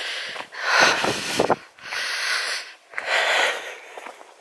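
A walker's breathing close to the microphone: about four breaths, roughly a second apart.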